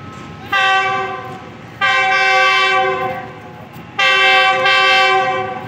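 Air horn of a Pakistan Railways GEU-40 diesel-electric locomotive sounding three blasts, a short one and then two longer ones, as the express train approaches.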